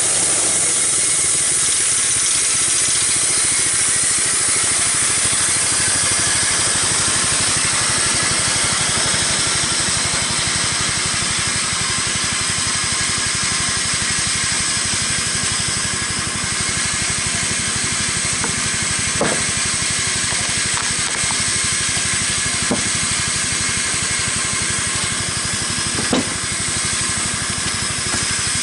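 Homemade band sawmill running with its blade cutting lengthwise through a log, taking a 1.5-inch plank off the side. A steady, even sawing noise, with a few faint sharp clicks near the end.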